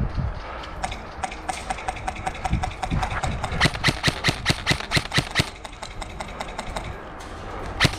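Airsoft guns firing a string of single shots, sharp cracks that come irregularly at first, then about three a second around the middle, thinning out near the end.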